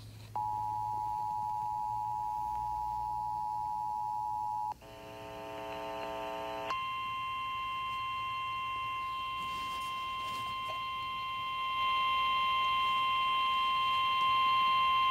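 Emergency Alert System tones over FM radio: the two-tone attention signal sounds steadily for about four seconds, a buzzy tone follows for about two seconds, then a long single steady alarm tone of the kind used on weather radio, which gets louder near the end. Together these tones announce an incoming flood warning alert.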